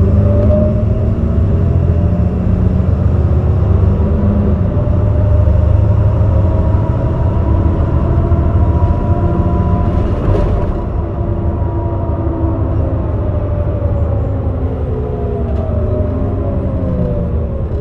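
Heuliez GX327 city bus under way: its diesel engine and ZF 5HP 504C automatic gearbox pulling, with a low rumble and a whine whose pitch rises slowly for about ten seconds and then falls away as the bus eases off.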